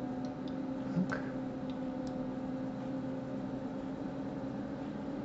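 Steady low electrical hum with background hiss, with a few faint computer-mouse clicks in the first two seconds and a slightly louder click about a second in.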